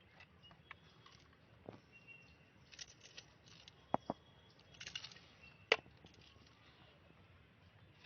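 Faint scattered clicks and light taps with a couple of brief rustles, the sharpest click about six seconds in.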